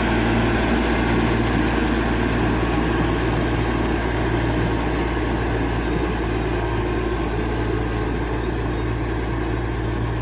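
Caterpillar D6G bulldozer's diesel engine running steadily with a deep, even drone.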